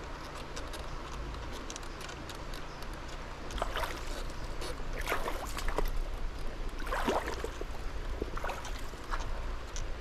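River water sloshing and trickling, with irregular crackly splashes, the loudest a few seconds in and again around the middle.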